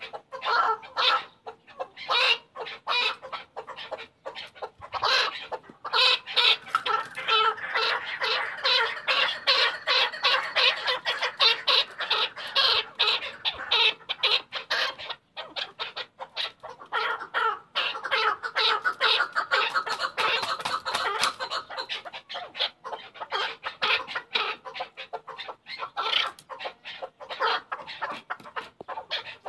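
Chukar partridge calling: long runs of rapid, repeated chuck notes that build into dense chattering stretches several seconds long, with brief pauses between runs.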